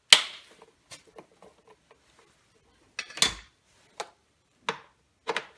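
Sharp metallic clicks and clinks at irregular intervals, from a wrench working the 10 mm bolts on the engine's upper intake. A loud click comes right at the start, and a louder clatter about three seconds in.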